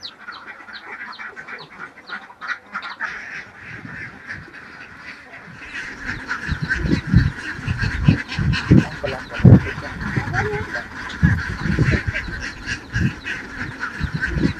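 A large flock of farmed ducks quacking and calling all together, a dense steady chatter. About halfway through it grows louder and closer, with low thumps mixed in.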